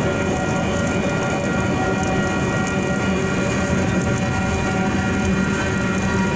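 Freight cars of a mixed freight train rolling past, a steady rumble and clatter of wheels on rail. Over it the grade crossing's electronic warning bells ring continuously.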